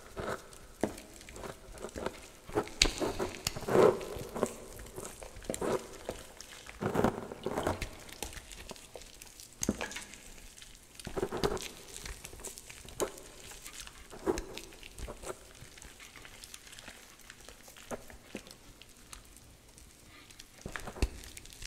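Hands squeezing and crumbling soft gym chalk blocks and loose chalk powder in a metal bowl: irregular soft crunches and crackles, with a few louder crunches in the first half.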